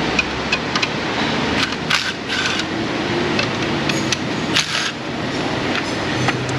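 Metal hand tools, likely sockets and wrenches, clinking and scraping in a scattered series of sharp clicks over steady workshop background noise.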